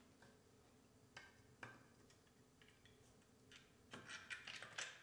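Near silence broken by faint clicks and light taps of a steering gear module being handled and set onto a power steering gearbox: two single clicks, then a quick run of small clicks near the end.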